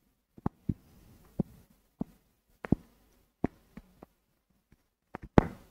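Stylus tapping and scraping on a drawing tablet while a circuit diagram is drawn: a dozen or so irregular light taps with faint scratching between them, the loudest tap near the end.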